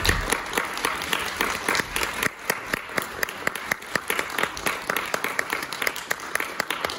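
Audience applauding: a dense patter of clapping that thins after about two seconds, leaving a few loud individual claps close by.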